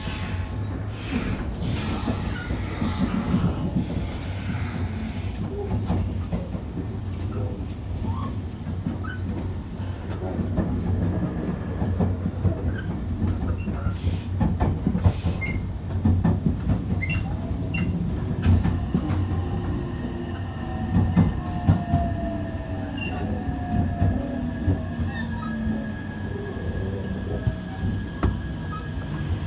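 JR West 287 series electric express train running, heard from inside the passenger car: a steady rumble of wheels on rail with scattered clicks over rail joints, and a thin steady wheel squeal in the second half.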